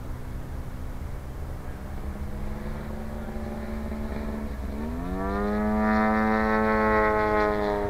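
Engine of a 40%-scale Sbach radio-controlled aerobatic airplane in flight, running steadily at low throttle. About five seconds in, its pitch dips briefly and then climbs as it is throttled up, and it runs louder and higher.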